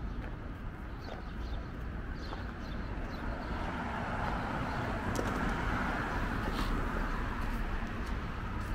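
City street ambience: a car passing swells up and fades over a few seconds in the middle, over a constant low rumble, with a few faint high chirps or ticks.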